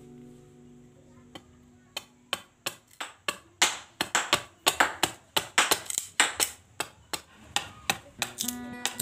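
A knife blade chopping and shaving the edge of a wooden machete scabbard blank to trim it to shape: a quick run of sharp wooden taps, about four a second, starting about two seconds in.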